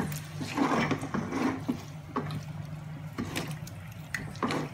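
A silicone spatula stirring raw chicken pieces through masala in a steel pot, with irregular scrapes and knocks against the pot. A steady low hum runs underneath.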